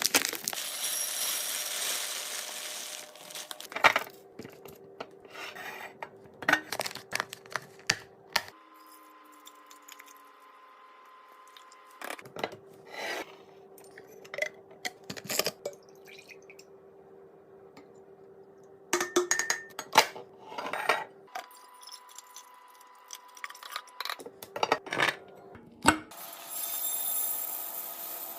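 Restocking sounds from containers and packages being handled and set down, in several bursts of sharp taps, clicks and clinks with rustling in between.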